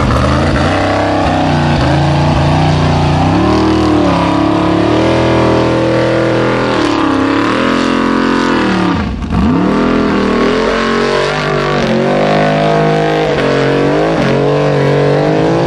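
Formula Offroad buggy's engine revving hard under load as it climbs a steep dirt hill, its pitch rising and falling with the throttle. About nine seconds in, the revs drop sharply and then climb straight back up.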